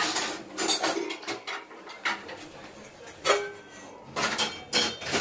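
Stainless-steel plates and utensils clinking and knocking together as they are handled on a kitchen counter, a string of separate sharp clinks, a few of them ringing briefly, the loudest near the end.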